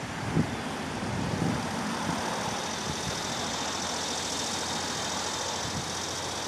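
Steady outdoor vehicle and traffic noise. A few light knocks come in the first second and a half as someone moves about in the bed of a pickup truck.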